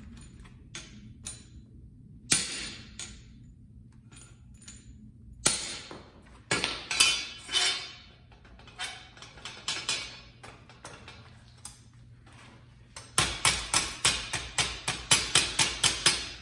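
Hammer striking a steel fireplace grate with metallic clanks: a few scattered blows, then a quick run of about four blows a second near the end.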